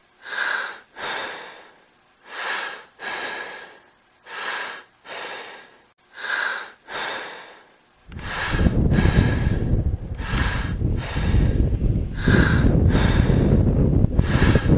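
A person breathing hard and rhythmically, an in-and-out pair about every two seconds. From about eight seconds in, a loud steady rush of wind on the microphone joins the breathing.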